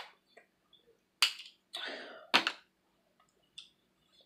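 Eating sounds from biting into crab shell: three sharp cracks or smacks about a second apart, with a short noisy stretch between the second and third.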